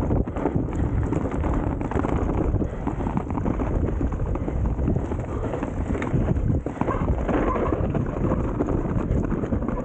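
Enduro mountain bike riding over a rough, snowy trail: a steady, dense rattle and rumble of tyres and bike over bumps, with many small knocks.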